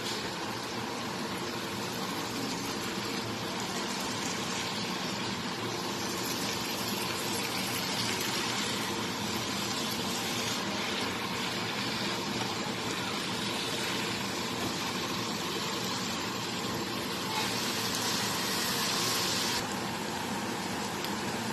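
Shredded bamboo shoots frying in oil in a frying pan: a steady sizzle as they are stirred and tossed with a spatula. The hiss swells for about two seconds near the end, then drops back suddenly.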